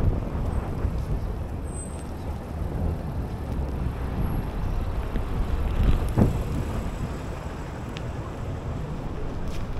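City street traffic: a steady wash of cars and other vehicles running along a downtown road, with one louder vehicle passing about six seconds in.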